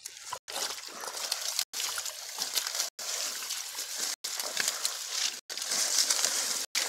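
Shallow muddy water sloshing and splashing as feet and hands move through it among water hyacinth. The sound is cut by short silent gaps about every second and a quarter.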